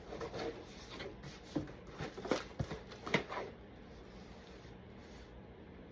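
Rustling and light clicks of packaging being handled as a costume shield is unwrapped, several in the first three seconds or so, then quieter.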